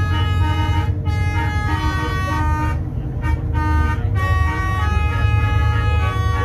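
Telolet musical air horn on a bus, playing a tune of several held tones at once that step to new pitches every half second to a second, over a steady low rumble.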